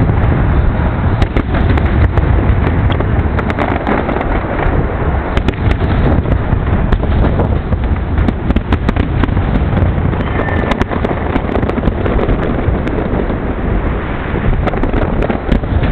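Aerial fireworks display: shells bursting in quick succession, with many sharp cracks and crackling over a continuous low rumble.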